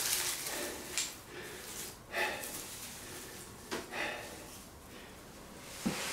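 Dry wood shavings and a burnt tinder bundle being crumbled by hand and dropped onto a concrete floor, with a few light clicks and short sniffs.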